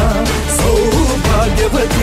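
Indian film song playing: a singer's wavering melody over a steady beat and bass.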